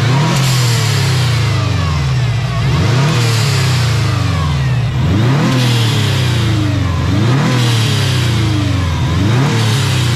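Subaru WRX's turbocharged flat-four revved repeatedly with no load, about five blips, each climbing quickly and falling away slowly. A hiss comes from the Turbosmart blow-off valve venting as the throttle is let go each time.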